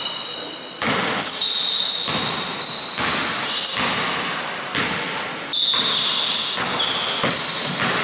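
A basketball is dribbled on a wooden sports-hall floor, sharp bounces about once or twice a second, each echoing in the large hall, with high squeaks over them.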